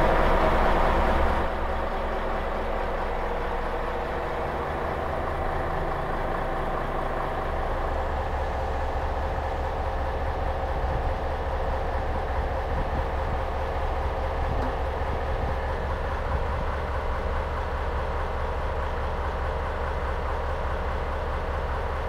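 Kishū Railway one-car diesel railcar idling at the platform: a steady engine hum that holds unchanged throughout.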